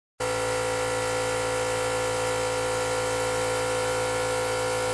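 Air compressor's motor and pump running steadily, cutting in abruptly just after the start.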